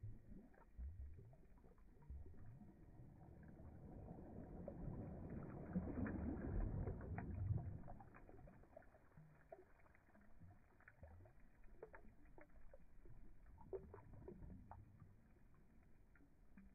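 Australian shepherd blowing bubbles into shallow water with its nose: a low bubbling and splashing that swells to its loudest about six to seven seconds in, then dies down to scattered drips and small splashes.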